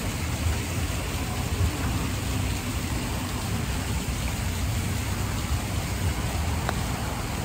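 Steady outdoor background noise: a soft even hiss with wind buffeting the microphone in a low rumble.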